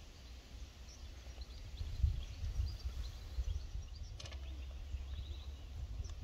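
Wind rumbling on the microphone over an open putting green, with faint bird chirps. A little after four seconds in there is a short clicking rattle as the golf ball drops into the cup against the flagstick.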